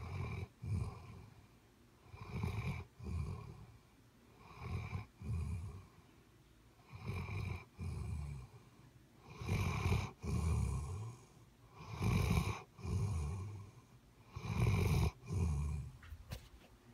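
Heavy snoring: about seven long snores, one every two and a half seconds or so, each in two parts. They grow louder from about halfway through.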